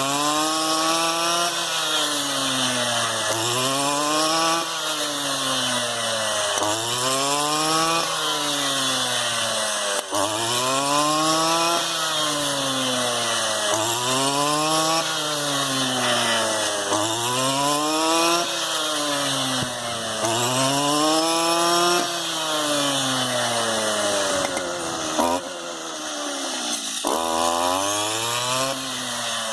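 STIHL FR 230 backpack brushcutter's two-stroke engine running at high revs, its pitch rising and falling in a steady cycle about every two seconds as the cutter takes and sheds load while harvesting rice stalks. Near the end it drops lower for a moment, then picks up again.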